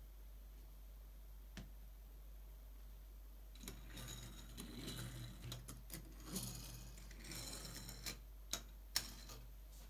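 Small LEGO toy cars' plastic wheels rolling and rattling across a hard tabletop, followed by a few sharp clicks of plastic pieces near the end. A steady low hum runs underneath.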